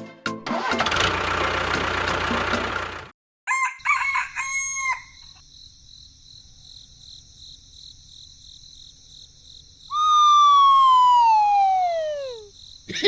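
A rooster crowing, its long final note falling steadily in pitch for about two and a half seconds near the end. Before it, a noisy rush lasts about three seconds at the start, followed by a few short pitched notes.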